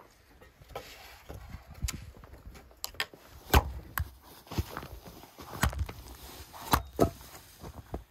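Hatchet splitting kindling on a chopping log: a string of sharp wooden chops and cracks at irregular intervals, starting about two seconds in and coming roughly once a second.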